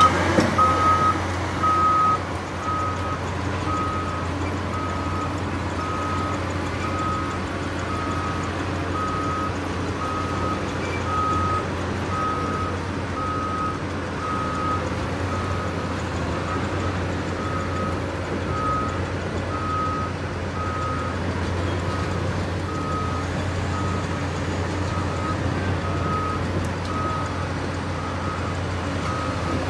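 Travel alarm of a Caterpillar 6015B hydraulic mining excavator beeping steadily, a single high tone roughly every two-thirds of a second, louder for the first couple of seconds, the sign that the machine is travelling on its tracks. Under it, the steady low hum of the excavator's diesel engine.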